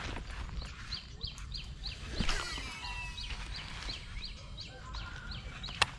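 A bird calling over and over with a short falling note, about three times a second. A single sharp click comes near the end.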